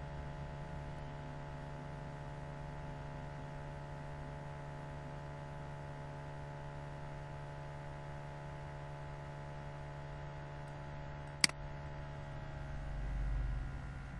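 Steady electrical mains hum with a single sharp click about eleven seconds in. A low rumble swells briefly near the end.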